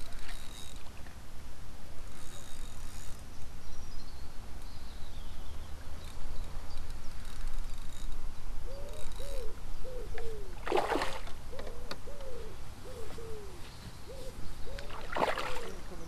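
Two short splashes on the pool's surface about four seconds apart, over a steady low rumble of wind on the microphone. High birdsong comes early on, and a low bird call repeats about twice a second through the second half.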